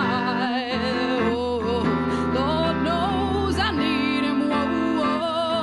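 A woman singing a slow, tender song, holding long notes with vibrato, over sustained guitar accompaniment.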